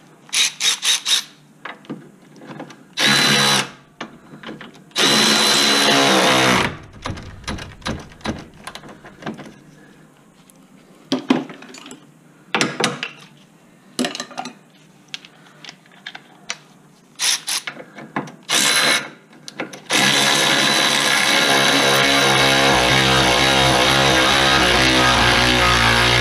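Cordless power drill or impact driver run in several short bursts, driving control-arm bolts back in, between clicks and knocks of tools. About twenty seconds in, steady music comes in.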